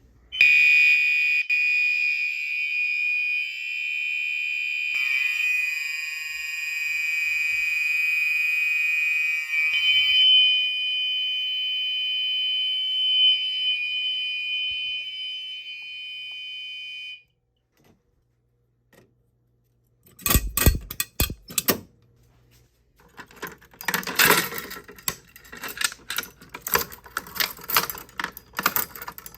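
Gentex fire alarm horns sounding together in a continuous steady high tone, the signal coding set to continuous, for about seventeen seconds before cutting off. After a short silence come a few sharp knocks, then a stretch of rapid clicking and rattling.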